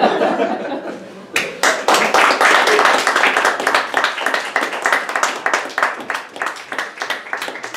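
Audience applauding: a voice trails off, and about a second and a half in dense clapping from many hands starts and carries on.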